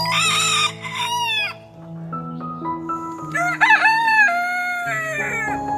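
Rooster crowing twice: a short crow at the start and a longer one from about three seconds in that drops in pitch at its end. Soft background piano notes run underneath.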